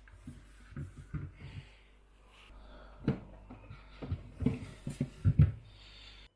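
Handling noises from a small fan motor and its parts being moved about: irregular knocks, taps and rustles, the heaviest clustered in the second half. Underneath runs a steady low hum that stops suddenly near the end.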